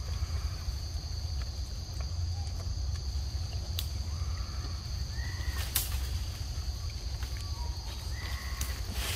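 Forest ambience: a steady high-pitched insect drone over a constant low rumble. A few short chirped calls come about halfway through and again near the end, and a few sharp clicks are scattered through.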